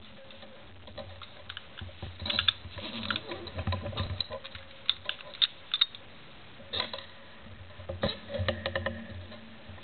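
Irregular clicks and light metallic knocks from a brass-and-steel post office mailbox door and its combination lock being handled and turned over, some clicks coming in quick clusters.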